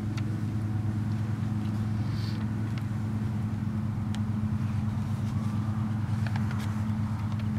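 Steady low hum of an idling engine, unchanging throughout, with a few faint ticks about four seconds in and near the end.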